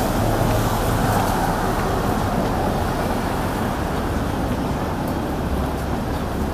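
Steady city traffic noise of passing road vehicles.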